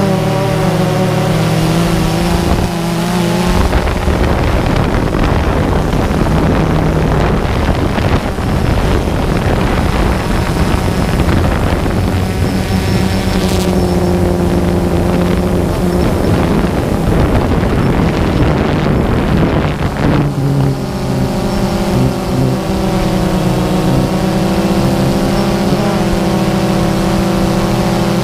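Multirotor drone's motors and propellers humming with a steady multi-tone drone. From about three seconds in until about twenty seconds in, a broad rush of wind noise covers the hum; after that the hum is clear and steady again.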